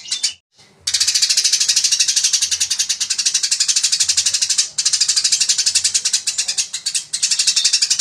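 Eurasian tree sparrow singing a fast, dense run of sharp chirps, many notes a second, in the rapid 'fighting' style. The song breaks off for about half a second near the start and pauses briefly twice more later on.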